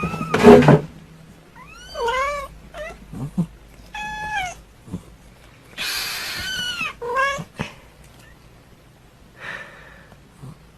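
Cat meowing about five times, drawn-out calls that rise and fall in pitch. A loud noisy burst comes about half a second in.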